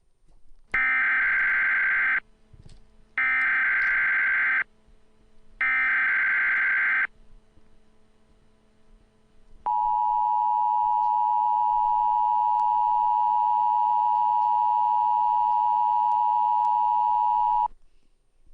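Emergency Alert System tones: three bursts of the digital SAME header, a harsh screech about a second and a half each, then the two-tone attention signal held steady for about eight seconds before cutting off. This sequence opens an EAS alert, here an administrative message.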